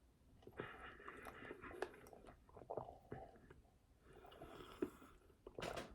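Faint close-up eating sounds: a person drinking and chewing a half-melted Blizzard with cookie bits in it, soft wet chewing and small mouth clicks in two spells.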